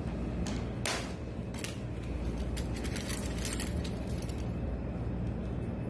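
Light clicks and clatter of rigid white PVC accordion-door panels knocking against each other as they are handled and stacked, scattered irregularly and strongest a little under a second in, over a steady low hum.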